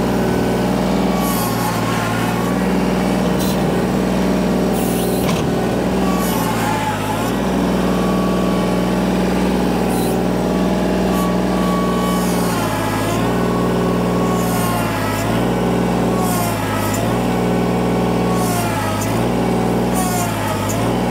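Kubota L2501 tractor's three-cylinder diesel engine running hard under load as its front loader pushes over a tree. The pitch sags briefly again and again, about every two seconds in the second half, as the engine lugs and recovers.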